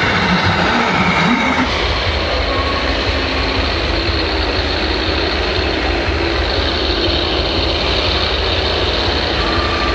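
Radio-controlled model vehicle running: a steady mechanical rumble with a low hum, changing abruptly about two seconds in.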